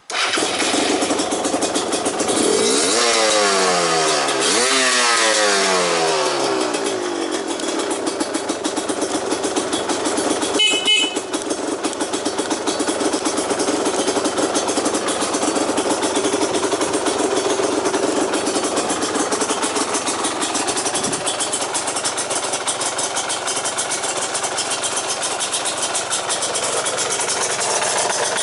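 Yamaha DT230 Lanza's two-stroke single-cylinder engine, breathing through an aftermarket PRO SKILL expansion chamber and silencer, is revved up and down twice in the first several seconds and then idles steadily. A brief high beep sounds about ten seconds in.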